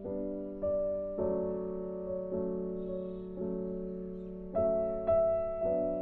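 Slow, gentle piano music: chords and single notes struck every second or so, each ringing and fading away before the next.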